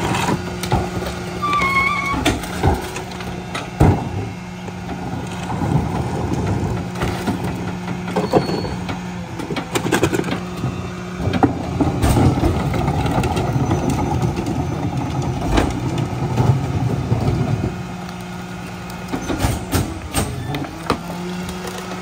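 Mack garbage truck's diesel engine idling, then revving up about eight seconds in while the McNeilus rear-loader packer cycles to compact the trash, settling back to idle near the end. Trash bins bang against the hopper now and then.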